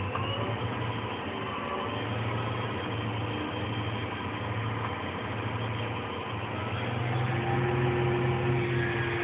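Tractor engine running steadily, a low drone that grows a little louder about seven seconds in, when a faint whine joins it.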